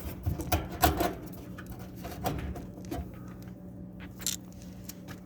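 Scattered clicks, knocks and light scrapes of dryer parts being handled during disassembly, over a faint steady hum.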